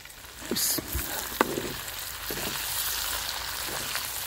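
Chicken karahi frying in a metal karahi. A steady sizzle starts about half a second in as sliced green chillies are tipped into the hot oil, with a few metal clicks of the slotted spoon against the pan.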